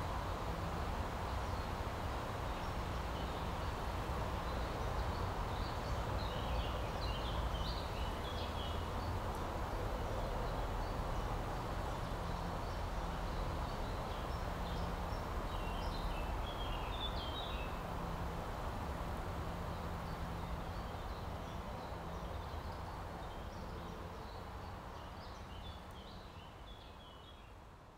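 Outdoor ambience: a steady wash of distant background noise, with small birds chirping in three short bouts. It fades out over the last few seconds.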